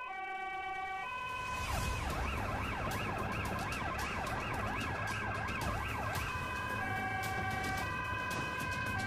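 Police car siren on a fast yelp, its pitch sweeping up and down about three times a second, over the low rumble of the car driving.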